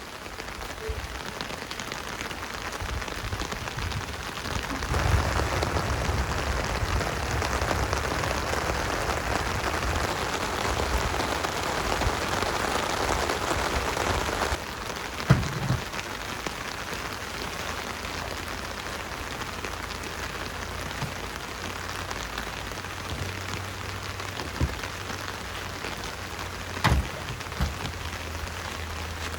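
Steady rain falling and pattering on surfaces. It is heavier for about ten seconds, then drops abruptly to a lighter level about halfway through, with a few single louder knocks.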